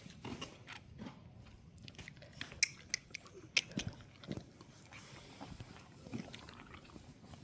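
Scattered crunching and sharp clicks, irregular, with the loudest strokes clustered in the middle.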